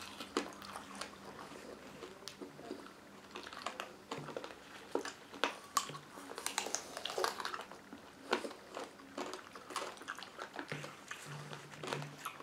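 Two people biting and chewing candy apples: the hard sugar coating cracking and the crisp apple flesh crunching, heard as scattered short crackles and clicks.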